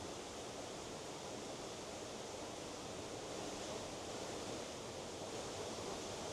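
Faint, steady rush of running water, even and unbroken.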